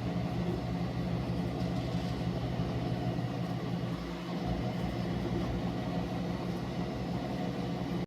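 A small electric motor running steadily with a low hum, then cutting off at the end.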